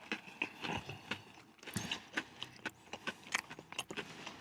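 Close-up eating of crispy fried chicken burgers: irregular sharp crunches and clicks of biting and chewing, several a second.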